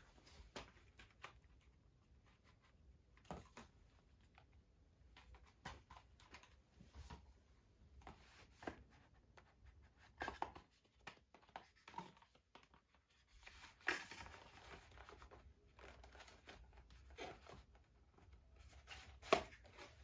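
Faint, scattered clicks, taps and rustles of a Blu-ray case and its cardboard slipcover being handled and put back together, with a few louder scrapes about halfway through and near the end.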